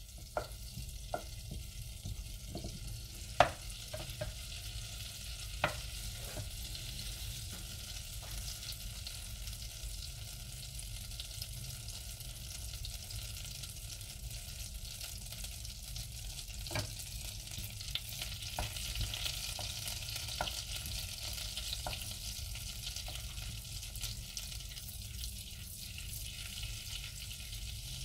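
Butter melting and sizzling in a saucepan, a steady frying hiss that grows a little louder in the second half. A wooden spoon stirs it and knocks sharply against the pan several times, mostly in the first few seconds.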